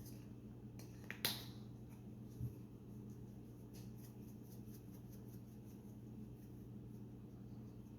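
A few sharp clicks and a soft thump from ingredients and containers being handled while a recipe is mixed, over a steady low electrical hum.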